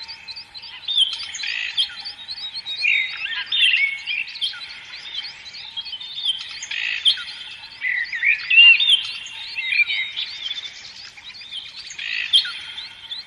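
A chorus of many small songbirds chirping and twittering at once, with quick overlapping chirps and short whistled notes.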